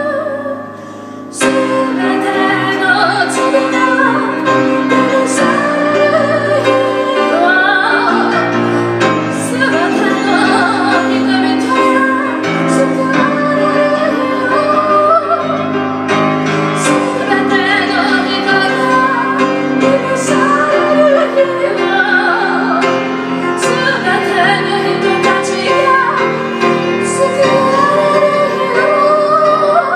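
A woman singing while accompanying herself on a grand piano, in a live piano-and-voice performance. The music dips briefly just after the start, then a strong piano chord brings voice and piano back in.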